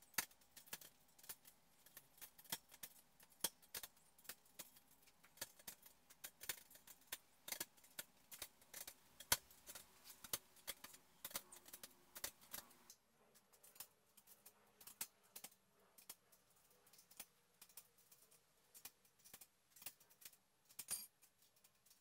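Small steel T-nuts clicking and clinking against each other and against the aluminum profile as they are handled and slid into its slots. The clicks come in quick irregular runs, thinning out about halfway through.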